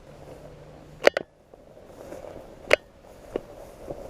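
A few sharp, brief clicks over faint background noise: a double click about a second in, then single clicks nearer the end.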